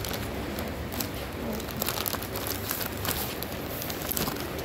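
A takeaway food wrapper around french fries being opened by hand, crinkling and rustling with many quick crackles.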